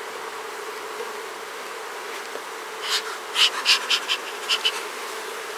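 Honeybee colony in an open hive humming steadily; the beekeeper says it sounds queenless, the queenless roar that differs from a normal hive. From about three seconds in, a quick run of short hissing puffs from a bee smoker's bellows.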